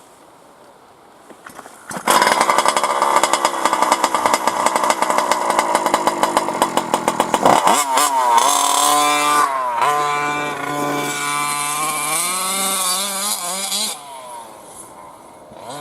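Losi 1/5-scale RC car's 47cc two-stroke petrol engine catching about two seconds in and running at low speed with rapid firing pulses, then revving up sharply and rising and falling in pitch as it is throttled, dropping away in level near the end.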